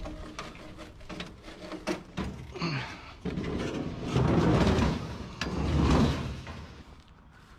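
Elliptical cross-trainer being handled and loaded onto a metal trailer: knocks and clatter from its steel frame, then two loud scraping, sliding noises about four and six seconds in as it is pushed across the checker-plate floor.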